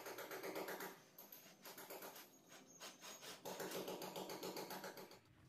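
A PVC ceiling panel scraping and rasping against the ceiling frame and the neighbouring panels as it is pushed and slid into place by hand. There are two spells of scraping, one at the start and a longer one from about three and a half seconds in.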